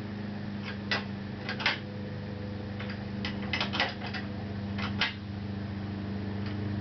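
Scattered light clicks and knocks of metal parts being handled as a motorcycle fork tube is nudged into position in its clamps, over a steady low hum.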